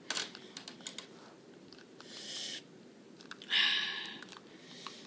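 Small irregular clicks and ticks from hands working a closed-face spincast fishing reel, with two short hissing sounds, the second and louder one just past the middle.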